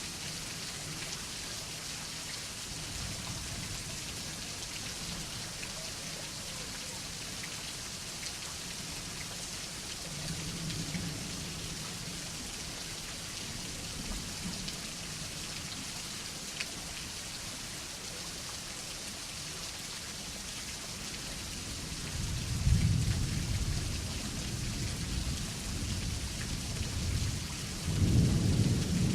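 Steady rain falling, with thunder. A faint low rumble comes about ten seconds in, then louder rolls of thunder follow in the last third, the loudest just before the end.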